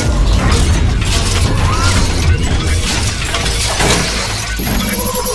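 Sound effects of an animated intro: a dense run of sharp clicks and hits over a deep, steady low rumble, with a few held tones coming in near the end.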